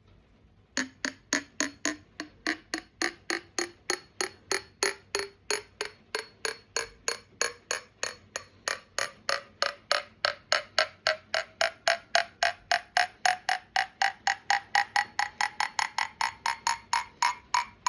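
A spoon taps a mug of freshly stirred hot drink about four times a second, each tap ringing with a clear note whose pitch climbs steadily. This is the hot chocolate effect: the rising pitch comes from the drink clearing as its powder-and-stirring bubbles escape, not from a crack in the mug.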